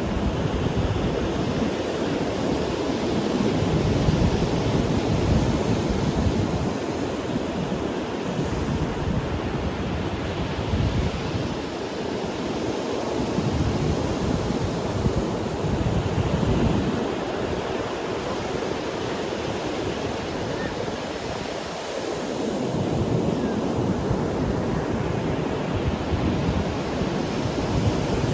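Ocean surf washing onto a sandy beach, a continuous roar that surges and recedes every few seconds as waves break, with wind buffeting the microphone.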